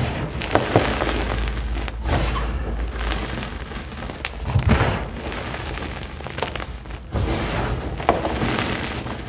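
Hands crushing and heaping crumbled green dye blocks: a gritty crunching and rustling of powder and small chunks, with a few soft thuds as handfuls are pressed down.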